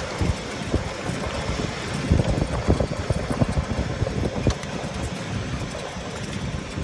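A golf cart in motion, with wind buffeting the microphone in irregular low thumps over a steady rushing noise.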